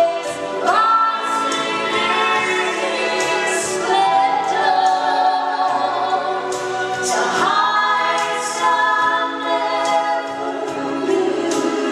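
Gospel vocal trio, one man and two women, singing a sung worship song in harmony into microphones, with long held notes.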